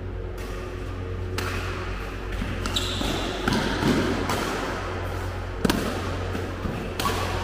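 Badminton rackets striking a shuttlecock in a doubles rally: a string of sharp hits roughly a second apart, over a steady low hum.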